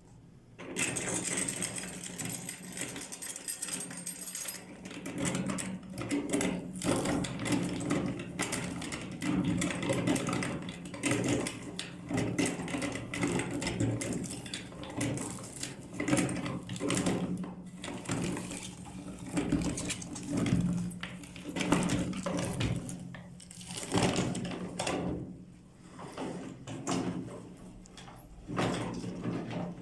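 Electric meat grinder running with a steady motor hum, crunching and crackling as chili peppers are fed through it. It starts about a second in.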